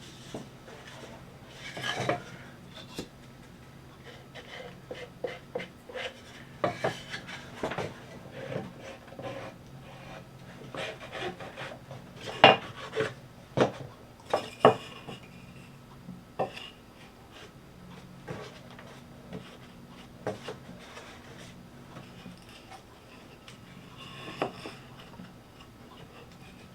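Cedar fence-picket boards being handled and set in place: scattered knocks, taps and scrapes of wood on wood, with a cluster of louder knocks about midway, over a faint steady low hum.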